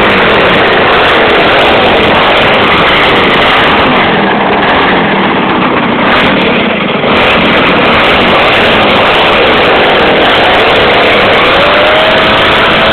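Chainsaw's two-stroke engine powering a homemade snowblower, running loud with its pitch wavering up and down. It dips slightly in loudness for a few seconds in the middle.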